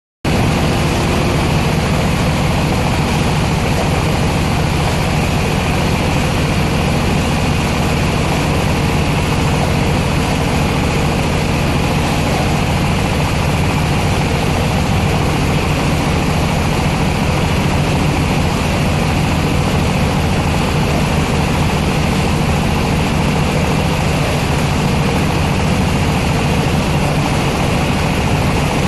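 Diesel engine of a silage baling and wrapping machine running at a steady speed, with a constant low pulsing hum and no change in pace.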